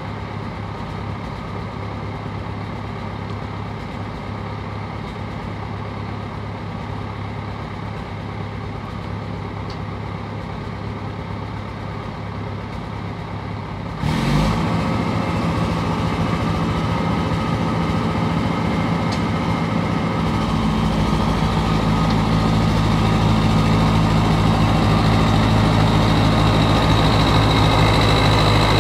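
Caterpillar 955 track loader's diesel engine idling steadily. About halfway through it gets suddenly louder, with a brief rise in pitch, and it grows a little louder again toward the end.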